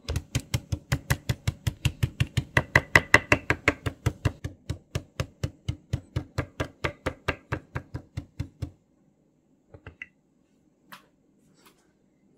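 Small kitchen knife chopping rapidly and evenly on a cutting board, about five strokes a second, stopping about nine seconds in, followed by a few scattered light taps.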